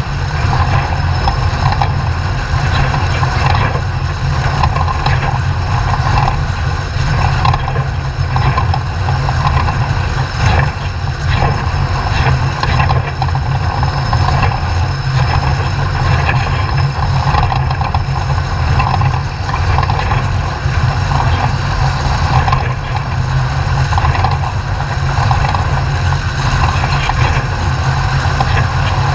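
Class 2000 off-road race truck running steadily, a constant engine drone with a deep low rumble and occasional knocks.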